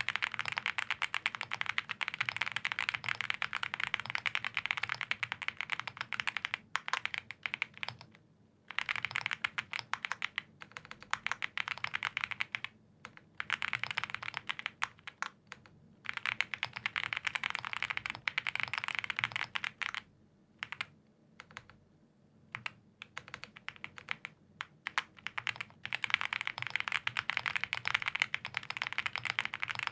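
Continuous fast typing on a custom mechanical keyboard (Owlab Spring case) with lubed Gazzew Boba U4T tactile switches on a POM plate, under GMK Klassiker keycaps. It is a dense run of keystrokes with a few brief pauses and a longer lull about two-thirds of the way through.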